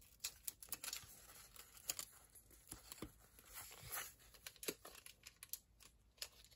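Faint rustling and light clicks of Pokémon trading cards being handled and squared into a stack, with some crinkling.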